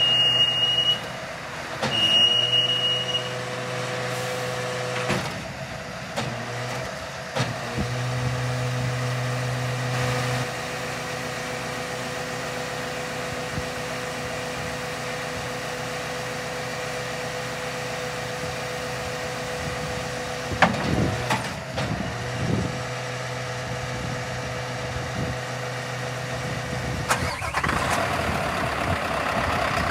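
Scania R520 truck's V8 diesel idling steadily while the hooklift arm is worked, with a steady high-pitched tone sounding twice in the first few seconds and a few clunks along the way. Near the end the engine is heard louder and closer, from the open engine bay.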